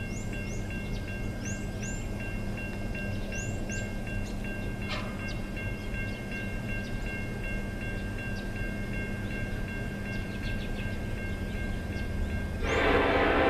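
Railroad grade crossing bell ringing with a fast, even dinging over a low rumble as a Norfolk Southern freight train approaches. Near the end the bell is drowned out by a sudden, much louder rush of train noise as the train arrives.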